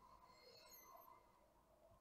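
Near silence: quiet room tone.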